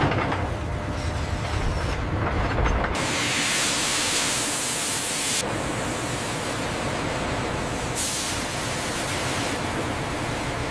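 Factory machine noise with no speech: a low rumble with a heavy knock at the start, then from about three seconds a steady loud hiss that shifts abruptly twice, at about five and eight seconds.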